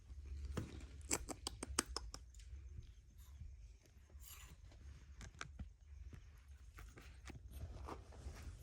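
A scatter of small sharp clicks and light scraping, with a quick run of clicks about a second in, over a low hum.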